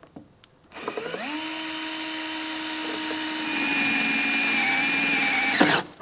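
Cordless drill spinning up and drilling through a car's sheet-metal body: a steady motor whine, with a high squeal from the bit cutting the metal joining about halfway through. The drill stops suddenly near the end.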